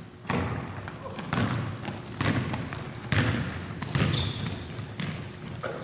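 A basketball being dribbled on a hardwood gym floor, a bounce about once a second, each echoing in the hall. In the second half there are short high sneaker squeaks on the court.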